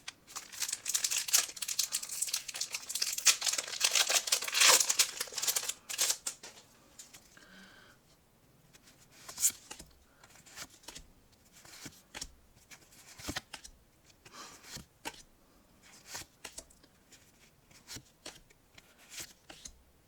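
A Pokémon card booster pack's wrapper torn open and crinkled for about six seconds. After that come soft, scattered rustles and clicks of cards being slid through by hand, about one a second.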